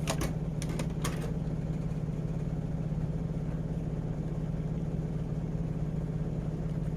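Steady low mechanical hum, with a few light clicks in about the first second as the toy figure is handled.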